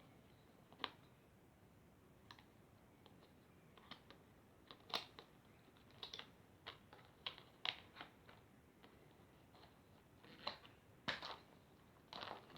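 A pig wheezing: faint, irregular short clicks and snuffles a second or two apart, a little louder near the end.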